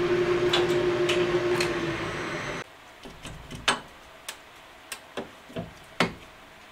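Metal lathe cutting the tapered head of an engine valve with a form tool: a steady hum over a continuous hiss of cutting, the tool chattering a little. About two and a half seconds in the sound cuts off abruptly, leaving a quiet stretch with a handful of sharp clicks.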